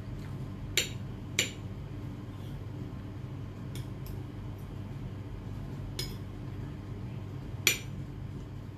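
Metal spoon and fork clinking against a plate of rice while eating: about five separate sharp clinks, the loudest near the end, over a steady low background hum.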